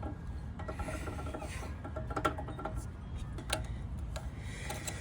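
A rubber shim, cut from an old scooter boot, is being worked onto a motorcycle's exhaust pipe: rubbing and scraping with brief squeaks and a few sharp clicks of metal.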